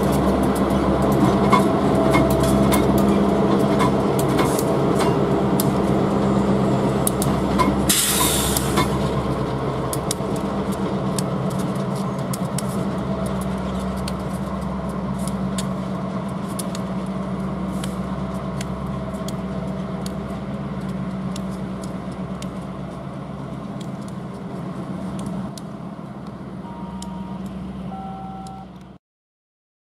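Union Pacific diesel yard locomotives rolling past, their engines drumming steadily with many sharp clicks of wheels on rail, fading as they move away. A brief hiss of air sounds about eight seconds in.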